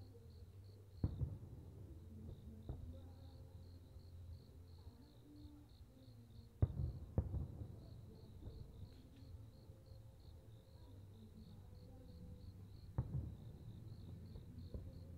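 Aerial firework shells bursting at a distance, each a sharp boom with a low rumble after it: three large bursts about a second in, midway and near the end, with a few smaller pops between. Night insects keep up a steady, pulsing high trill underneath.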